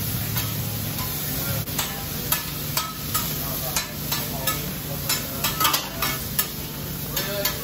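Steak cubes and vegetables sizzling on a hot steel flat-top hibachi griddle, with irregular clicks and scrapes of a metal spatula and tongs against the griddle as the food is turned.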